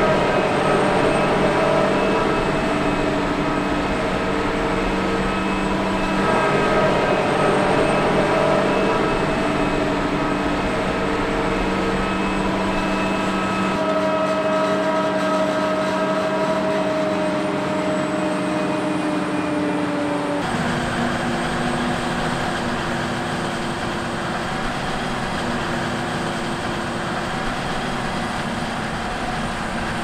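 Heavy diesel farm machinery running steadily, a droning engine note with several steady tones above it. The tone changes abruptly about two-thirds of the way through.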